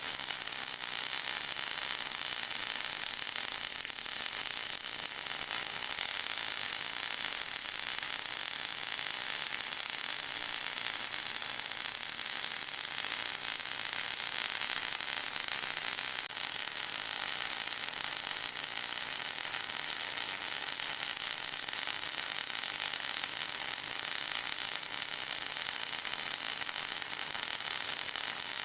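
Steady high-pitched hiss of a tinnitus-masking noise track, with faint steady tones running through it.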